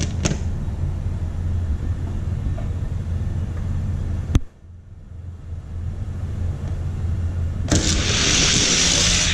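A steady low hum, a single sharp click about four seconds in, then from about eight seconds a loud rushing noise, which fits die-cast toy cars rolling down a plastic drag-race track.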